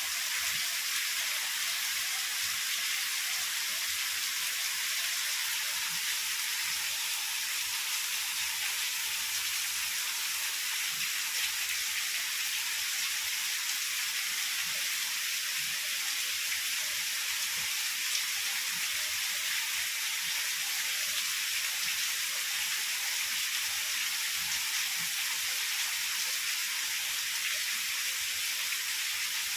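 Heavy rain falling steadily: an even, dense hiss with no let-up and no thunder.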